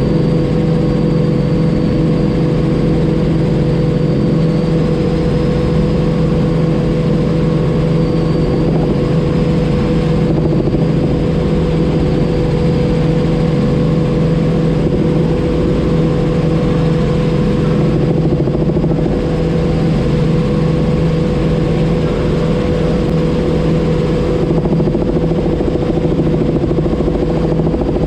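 Robinson R44 helicopter in cruise flight: its six-cylinder Lycoming piston engine and rotors make a loud, steady drone with a constant hum and a faint high whine, unchanging throughout.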